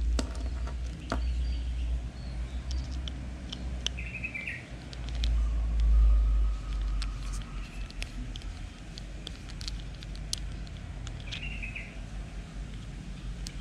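Small clicks of a screwdriver turning a screw in the body of a Shimano Sienna 2500 FE spinning reel as it is taken apart, over a low rumble on the microphone that is loudest about six seconds in. A bird chirps briefly twice in the background, about four and eleven seconds in.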